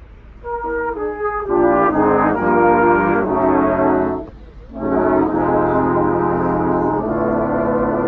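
Brass band playing: after a brief pause the band comes in with short stepped phrases, breaks off for a moment a little after four seconds in, then plays full sustained chords.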